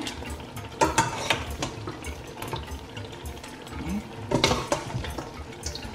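Pieces of cooked meat being dropped by hand into a stainless steel pot of wet egusi stew, with a few short knocks and wet splashes a little under a second in and again about four and a half seconds in.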